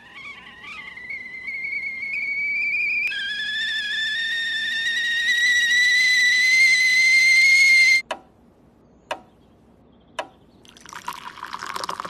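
Stovetop kettle whistling, climbing slowly in pitch and growing louder, then cut off suddenly about eight seconds in. Three sharp clicks follow about a second apart, and near the end water pours from the kettle into a mug.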